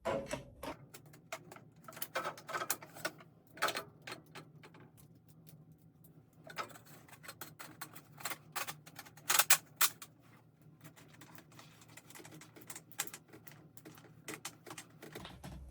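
Diesel heater exhaust and intake pipe fittings being pushed on and secured by hand: irregular sharp clicks and light knocks of metal and plastic parts, the loudest about nine to ten seconds in.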